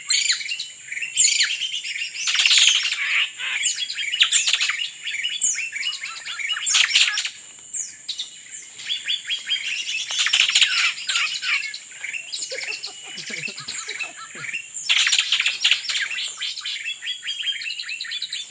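Several birds chirping and calling at once, with quick overlapping chirps and rapid trills coming in louder clusters every few seconds, over a steady high-pitched whine.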